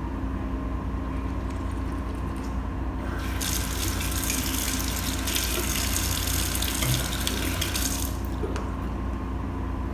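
Bathroom sink mixer tap turned on about three seconds in, water running into the basin, then shut off about two seconds before the end. A steady low hum sounds underneath throughout.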